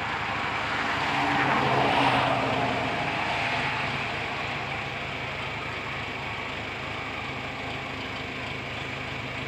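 Tractor engine running, swelling louder about two seconds in and then settling back to a steady run.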